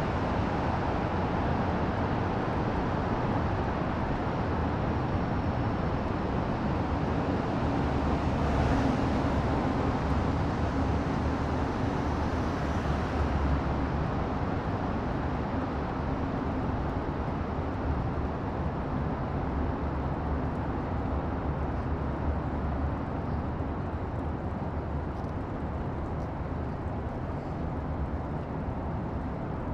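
Steady, low rumbling ambient noise, like an outdoor field recording, easing off slightly toward the end.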